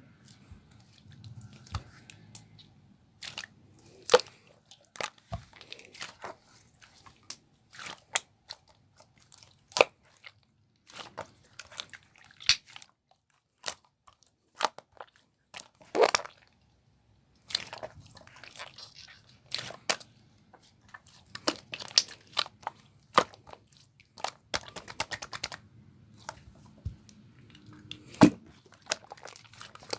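Clear slime being worked by hand, giving irregular sharp clicks and pops, with a quick rattle of clicks late on.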